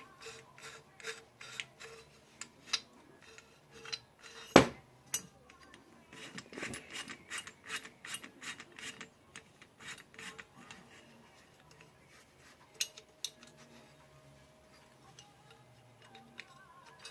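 AR buffer tube parts being screwed together by hand: a run of small metallic clicks and scraping of the threads, with one sharper knock about four and a half seconds in.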